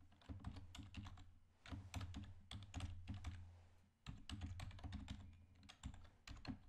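Faint computer keyboard typing: quick runs of keystrokes with short pauses between them.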